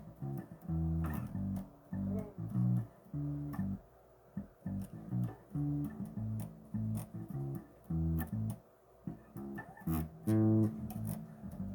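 Bass guitar playing a riff of short plucked notes with brief gaps between them, with one brighter, sharper note near the end.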